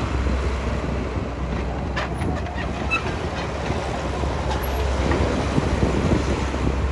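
Heavy diesel construction machinery running with a steady low rumble, with a few short metallic clanks about two and three seconds in.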